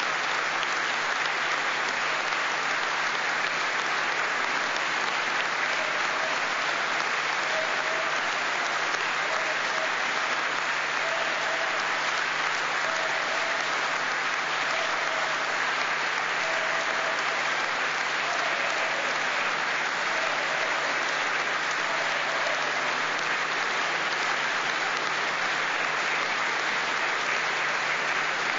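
A large audience applauding steadily, with dense, continuous clapping that neither builds nor fades.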